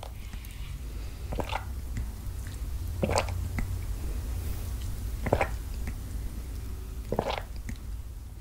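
Mouth sounds of people eating spaghetti: four short, sharp bursts about two seconds apart, over a low steady hum.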